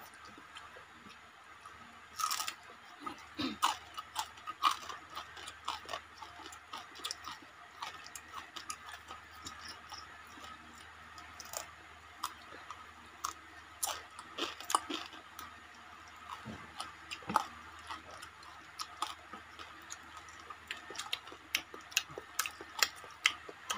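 Eating sounds close to the microphone: chewing and crunching on fried fish, with many short, irregular smacking clicks.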